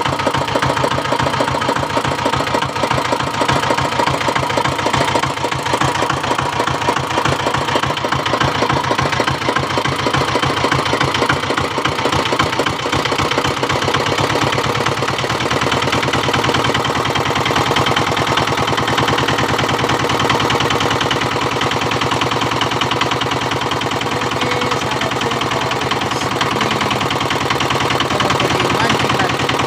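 Boat engine running steadily with a fast, even knocking beat.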